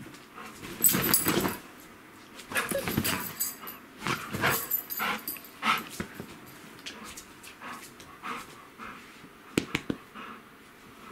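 Golden retriever panting with its mouth open, a steady rhythm of about two to three breaths a second, with a few louder, ragged bursts in the first half and two sharp clicks near the end.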